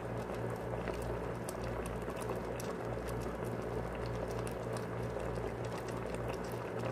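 Fish and malunggay (moringa) leaves in coconut milk boiling in an aluminium pot, a steady bubbling with many small pops, over a low steady hum.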